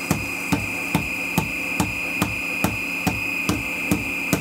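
Olympia Moca SD 64 mm burr grinder running empty with a steady high whine while its bellows is pumped in an even rhythm, about two and a half sharp puffs a second, purging the last retained grounds.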